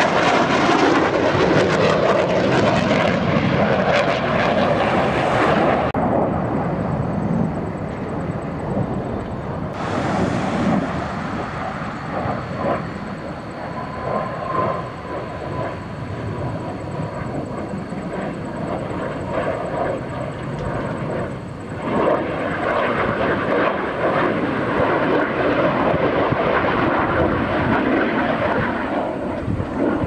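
Roar of a Blue Angels F/A-18 Super Hornet's twin jet engines as it flies past overhead. It is loudest at the start, eases off for a stretch, and swells again from about two-thirds of the way in as the jet comes around.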